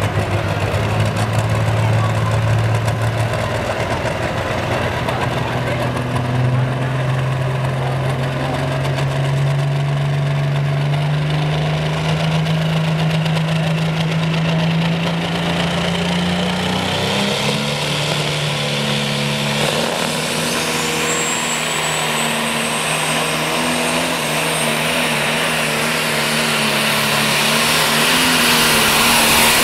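Turbocharged diesel engine of a John Deere-bodied pulling tractor running at the line, its pitch stepping slowly higher as it builds revs. It then revs hard and pulls the sled, with a high turbo whine rising about two-thirds of the way through and the sound growing louder near the end.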